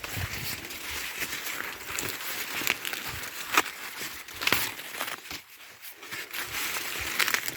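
Dry corn leaves and husks rustling and crinkling as stalks are pushed through and ears handled, with a few sharp cracks along the way.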